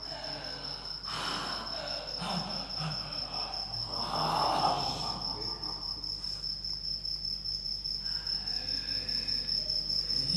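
A steady, high-pitched insect trill over a faint low hum, with some faint, indistinct sounds in the first half.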